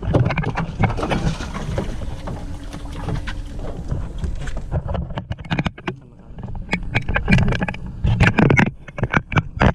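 Knocking and clattering aboard a small fishing boat over a low steady hum, the knocks growing sharper and more frequent from about halfway.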